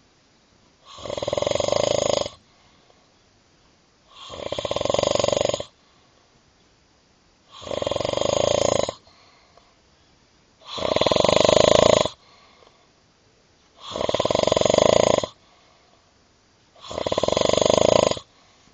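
Loud snoring: six snores in a steady rhythm, each about a second and a half long and coming about every three seconds, with quiet breaths between.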